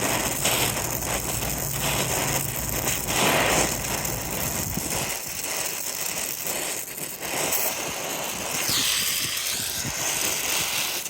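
Acetylene torch flame hissing steadily as it heats a soldered pipe seam, with a low rumble under it that drops away about five seconds in.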